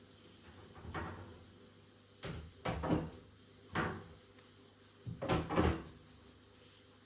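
A series of knocks and clunks of household items being handled and set down on a kitchen countertop, about six in all. The loudest come near the middle and toward the end.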